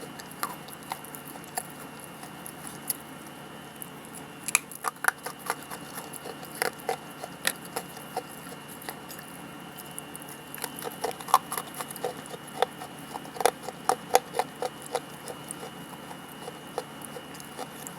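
Dry grey clay being bitten and chewed close to the mic, giving irregular crisp crunches that come thickest in the second half. A faint steady high-pitched tone runs underneath.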